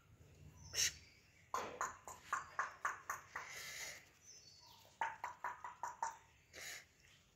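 Rottweiler puppies yipping and squeaking in short, quick strings as they play-fight: one run of yips about a second and a half in, a drawn-out squeal, then another run about five seconds in.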